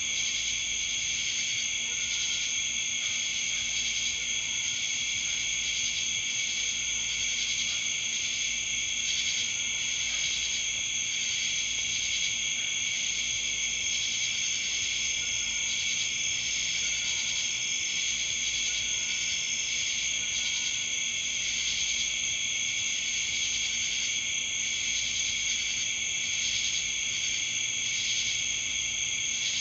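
A steady chorus of crickets and other night insects: several high-pitched trills overlap and carry on without a break, at an even loudness.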